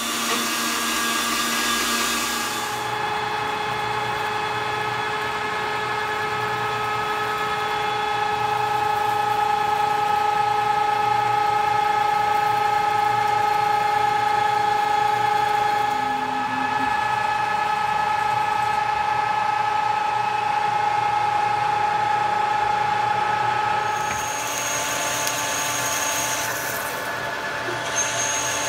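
Metal lathe running, turning metal bar stock, with a steady machine whine held at a few fixed pitches. For the first two or three seconds a handheld power tool cuts the bar stock instead. A high hiss joins the whine near the end as the lathe tool cuts and throws off curled chips.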